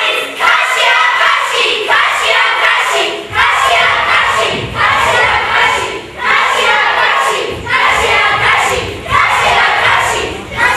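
A group of voices, children's among them, calling out together in unison in repeated loud phrases, about one every second and a half, with low thudding beneath from about three seconds in.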